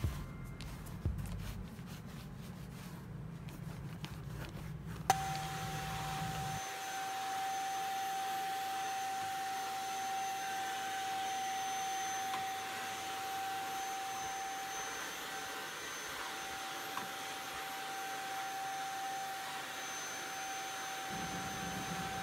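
Faint rubbing for the first few seconds, then a vacuum cleaner switched on with a click about five seconds in and running steadily, with an even high whine over a rush of air.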